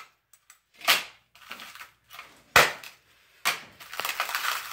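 Dagger point stabbing into a smashed Kindle e-reader's cracked screen: two sharp stabs about a second and a half apart, the second the louder, then a longer stretch of rough grating noise near the end as the blade works into the device.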